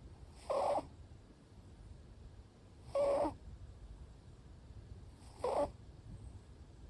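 Short-legged Munchkin cat snoring in its sleep: three short, slightly high-pitched snores, evenly spaced about two and a half seconds apart.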